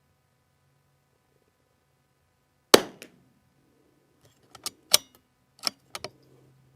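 A single crack of a .22 LR rifle shot from a bolt-action CZ 455, followed over the next few seconds by a run of sharp metallic clicks, the loudest about two seconds after the shot, as the bolt is worked to eject the case and chamber the next round.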